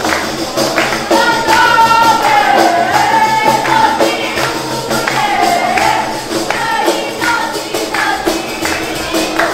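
A group of Albanian def frame drums with jingles, played by girls in a traditional ensemble, beating a steady rhythm under a women's sung melody in a traditional wedding song.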